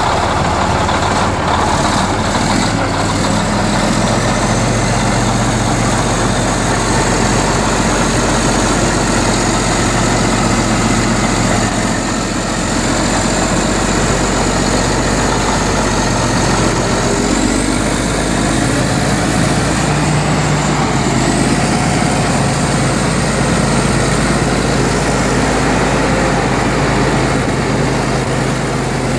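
Caterpillar D8K crawler bulldozer's diesel engine running steadily as the dozer moves. A thin high whine sits over the engine and rises about two-thirds of the way through.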